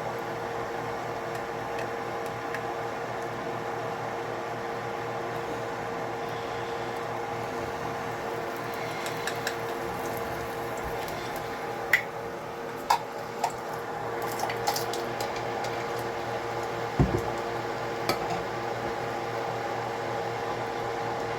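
Kitchen cooking sounds over a steady appliance hum, likely a fan. In the second half come a handful of sharp clinks and knocks of a utensil against a pan or dish, the loudest a little past the middle.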